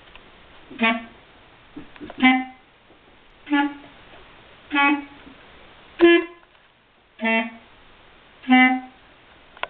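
Clarinet playing seven short, separate low notes, evenly spaced about a second and a quarter apart. The note just past the middle is slightly higher and the loudest.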